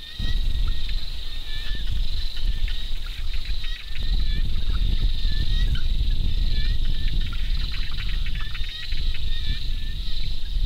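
Insects trilling steadily in a high, continuous chorus, with short repeated chirps and fine ticking mixed in, over a strong low rumble.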